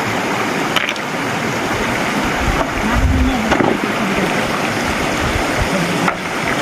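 Stream water rushing steadily over stones, with a few low thumps near the middle.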